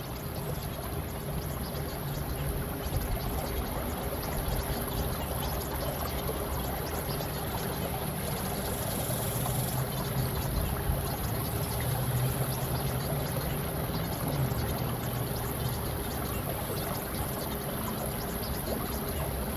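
Steady running water, an even rushing and trickling, with a faint steady tone near 400 Hz mixed in underneath.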